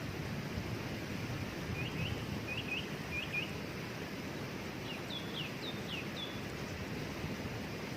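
Waterfall rushing steadily, with a bird singing over it: three quick pairs of short chirps between about two and three and a half seconds in, then a run of higher, falling notes around five to six seconds in.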